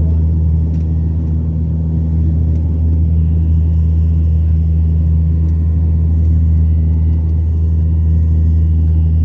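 Airliner engines and rushing air heard from inside the cabin during take-off: a loud, steady low rumble with faint steady whining tones above it.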